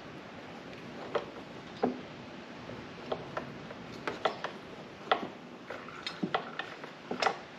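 Oil filter pliers gripping and working a spin-on oil filter loose on a mower engine: irregular metal clicks and knocks.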